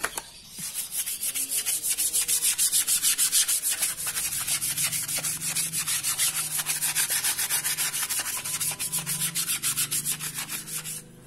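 A wet, soapy cotton t-shirt being scrubbed by hand over its screen-printed design, in quick, even back-and-forth strokes, several a second. The scrubbing stops just before the end.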